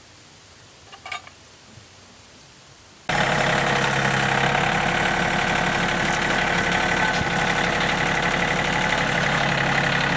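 A faint metallic clink about a second in, then an engine running steadily at idle comes in suddenly about three seconds in, from either the sawmill or the tractor beside it.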